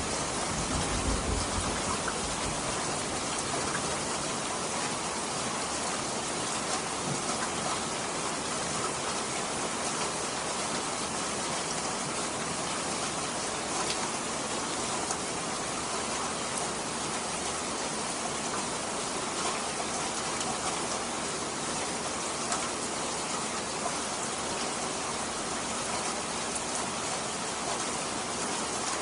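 Steady rain pouring down, with the tail of a low thunder rumble dying away in the first couple of seconds.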